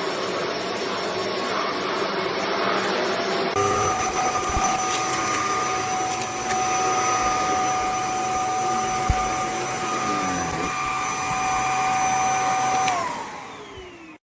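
Kenmore Featherlite bagless upright vacuum running with a steady motor whine over a rushing of air. Near the end it is switched off, and the whine falls in pitch and fades as the motor spins down.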